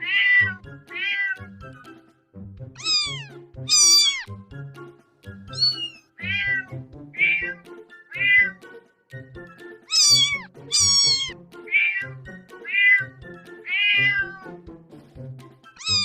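Cat meow sound effect: a string of separate meows, about one a second, each falling in pitch, some higher and brighter than others. They play over simple background music with a repeating bass line.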